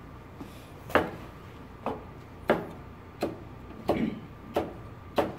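Chef's knife chopping a green bell pepper on a plastic cutting board: about seven sharp knocks of the blade on the board, roughly one every 0.7 seconds.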